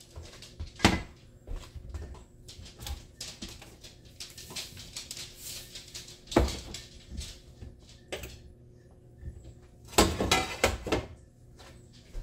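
A cooking pot set down on a glass-top electric stove with a knock, followed by a few more sharp knocks and clatters of pots being handled, the loudest about a second in and a cluster around ten seconds in.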